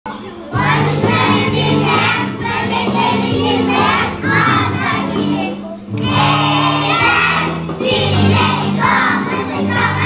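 Children's choir of young primary-school pupils singing together in phrases over an instrumental accompaniment with held bass notes.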